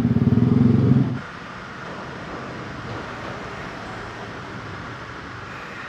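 Yamaha R15 single-cylinder engine idling, then cut off suddenly about a second in, leaving a steady background hum of the parking garage.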